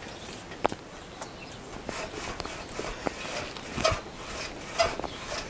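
Front fork tubes of a Honda CBR1000F being worked down through their slackened yoke clamps: scattered metal clicks and knocks, then near the end short squeaks about a second apart as the tubes rub in the clamps.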